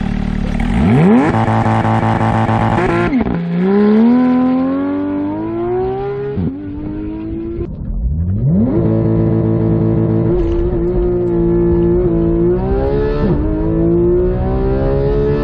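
Porsche 991.1 GT3's naturally aspirated flat-six accelerating through the gears. The revs climb sharply in the first second and hold high, drop suddenly about three seconds in, climb again and drop around six seconds in, sweep up quickly after a brief lull near eight seconds, then run steadier with smaller rises and dips.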